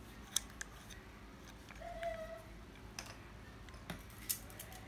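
Scattered light clicks and taps from a Ryobi AC2000 spinning fishing reel being handled, its spool and wire bail moved by hand. A short faint tone sounds about two seconds in.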